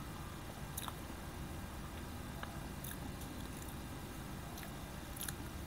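A metal spoon scooping the soft flesh of a black sapote, with a few short clicks and scrapes against the fruit's skin, over a steady low background rumble.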